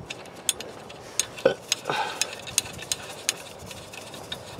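Sharp metallic clicks and clinks, two or three a second and unevenly spaced, from hand tools and hardware worked on the truck's U-bolt nuts.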